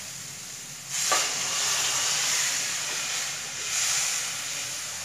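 Water poured into a kadhai of hot fried onion-tomato masala, hitting the hot oil with a loud sizzle and hiss that starts suddenly about a second in and goes on in swells. This is the stage where the fried masala is let down with water to make the gravy.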